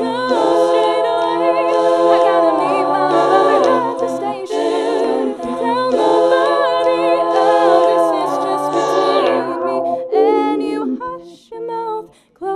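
Wordless a cappella singing in layered vocal harmonies, held as long sustained chords that swell and shift pitch. About ten seconds in the held chords stop and shorter, separate sung notes follow with brief gaps.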